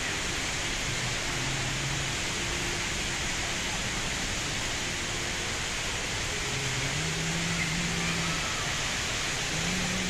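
Steady, even rush of the Rain Vortex, the tall indoor waterfall at Jewel Changi Airport, pouring from the roof into its pool.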